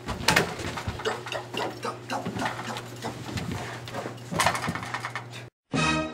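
A rapid flurry of knocks, scuffs and footfalls as someone rushes across a room and scrambles under a table, over a steady low hum. Music comes in near the end after a brief drop-out.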